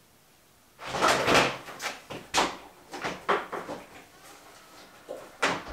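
A string of irregular knocks and clatters of a motorcycle's plastic fuel tank and fittings being handled and pushed into place on the frame, starting about a second in.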